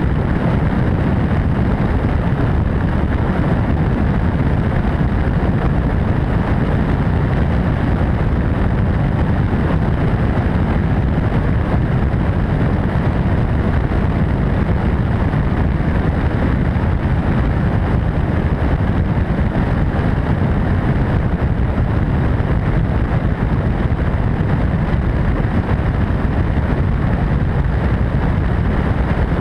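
MD600N helicopter in steady cruising flight: an even, unbroken rush of turbine and rotor noise.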